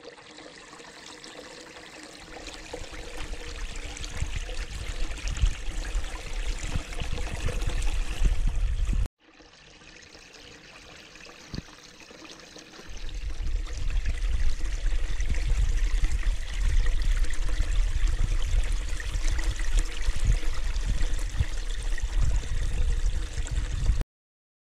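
Spring water pouring over a small chute into a shallow pool: a steady splashing trickle. The sound breaks off for a moment about nine seconds in, comes back with a low rumble added from about halfway, and cuts off near the end.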